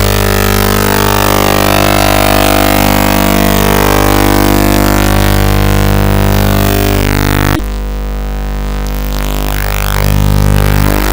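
Loud electronic music with steady held low tones under a dense, hiss-like upper layer. About seven and a half seconds in, the upper sounds cut out suddenly, leaving the low tones, then build back over the next two seconds.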